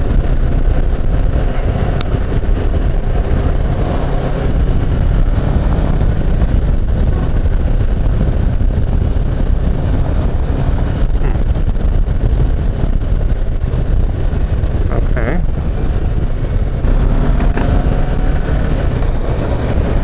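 Riding noise from a Kawasaki Versys 650 on the move: wind rushing over the microphone with the parallel-twin engine running steadily underneath.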